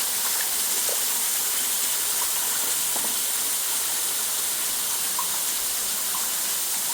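Waterfall pouring steadily, an even rushing hiss of falling water with no change in level.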